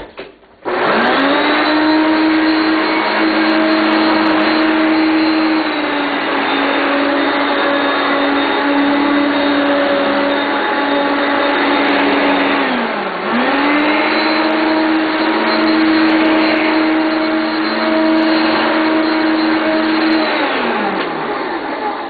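Hoover upright vacuum cleaner switched on and running steadily as it goes back over a patch cleared in a rice pickup test. The motor spins up with a rising whine about half a second in, dips and picks straight back up about two-thirds of the way through, and winds down near the end.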